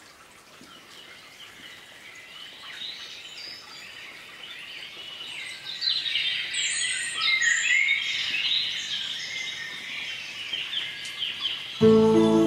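Birdsong of many small birds chirping and twittering, fading in and growing louder. Music starts abruptly near the end.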